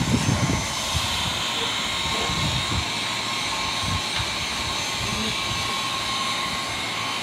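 Handheld electric grooming tool running steadily with an even, high whirring hiss as it is worked over a small dog's coat.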